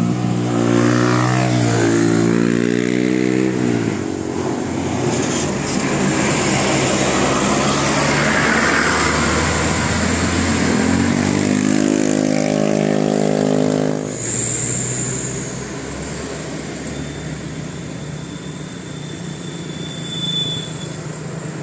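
Bus engine revving with its pitch rising, first in the opening few seconds and again about eleven seconds in, with steady road noise between. The sound drops to a quieter traffic rumble after about fourteen seconds.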